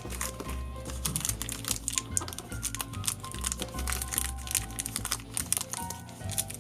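Background music with a steady bass beat, over crinkling and quick clicking of a Shopkins blind bag's plastic packaging being opened.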